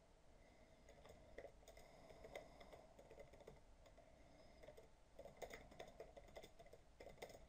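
Faint typing on a computer keyboard: irregular key clicks, bunched into short runs about two seconds in, at about five and a half seconds, and near the end.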